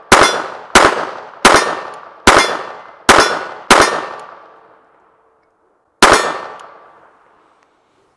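Beretta Model 21A Bobcat .22 LR pistol firing. Six shots come in quick succession, about one every 0.7 s, each with a short ringing tail. After a pause of about two seconds, one more shot comes about six seconds in.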